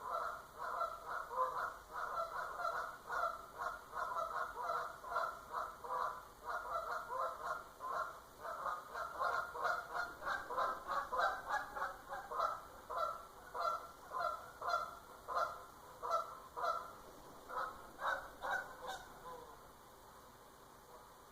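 Geese honking, a rapid run of repeated honks, several a second, that stops shortly before the end.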